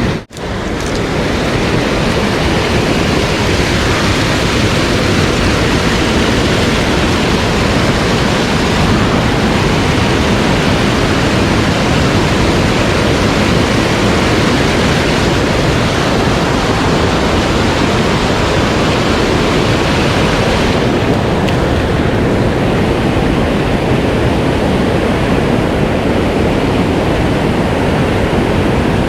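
Rushing water of a mountain stream, a steady loud hiss. It cuts out for a moment just after the start, and the high end thins a little about 21 seconds in.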